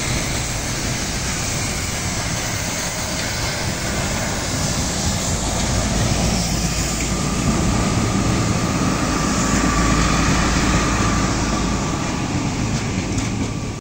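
A steam-hauled train's coaches and wagons rolling past with a steady rumble of wheels on the rails, swelling a little as the wagons go by. A thin, steady squeal comes in about halfway and fades a few seconds later. The sound cuts off suddenly near the end.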